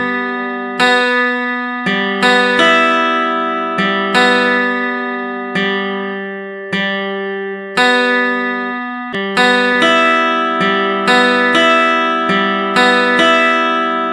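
Background music of plucked acoustic guitar notes, each struck and fading, in a slow, even melody.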